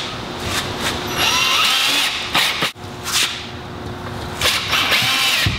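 Cordless drill running against a plywood board on a garage wall as it is screwed up, the motor whining up and down in three runs, the longest about a second in, over a steady background hum.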